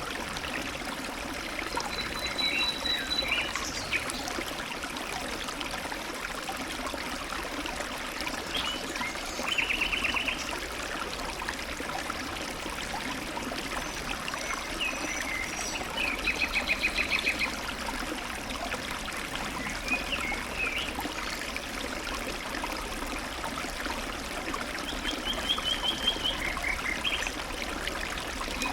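Small mountain stream trickling and babbling steadily over rocks, with songbirds singing short trilled phrases and chirps over it now and then.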